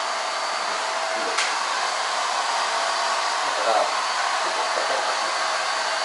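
Handheld hair dryer running steadily, a constant blowing hiss with a faint whine. A single sharp click comes about one and a half seconds in.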